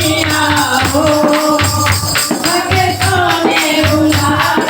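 Hindu devotional bhajan music: a wavering melody over rhythmic tambourine-style jingles and a steady low beat.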